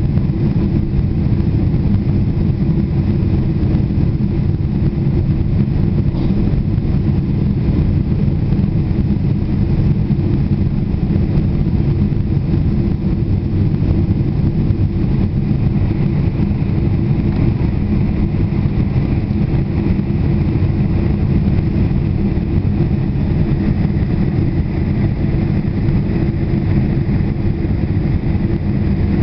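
Boeing 747 cabin noise in flight, heard from inside the cabin: a steady deep rumble of the engines and airflow, with a fainter hiss above it, unchanging throughout.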